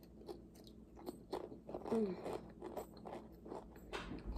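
Mouth chewing a Pringles potato crisp: a string of irregular, crisp crunches.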